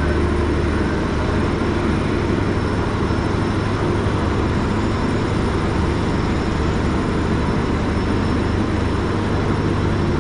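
Steady mechanical rumble with a low, unchanging hum, like an engine or other running machinery.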